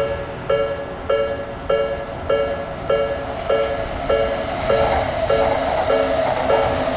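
Japanese railroad crossing alarm ringing in a steady string of dings, a bit under two a second. From about halfway through, the noise of a passing train builds up under it.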